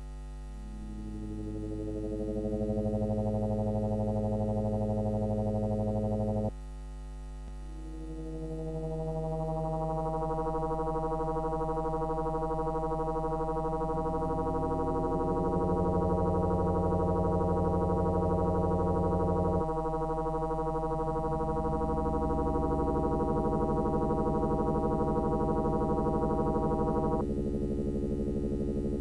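FM7 synthesizer played from tangible blocks on a Reactable-style tabletop: sustained electronic tones in stacked pitches, with no beat. The sound drops quieter about six seconds in, swells back, then shifts to new pitches a few more times as the blocks are moved.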